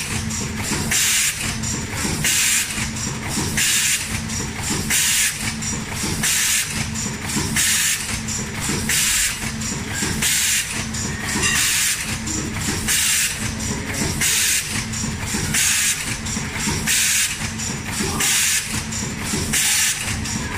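Automatic premade-pouch filling and sealing machine running: a steady low hum from its drive, with a short hiss of compressed air about once a second as its pneumatic parts cycle through each pouch.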